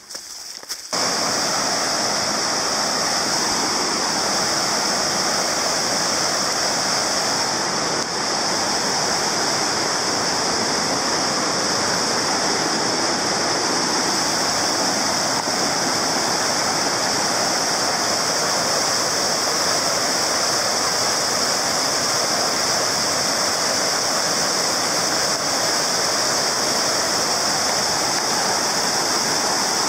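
Whitewater rapids rushing over and between large rocks in a creek: a loud, steady rush of water that sets in abruptly about a second in.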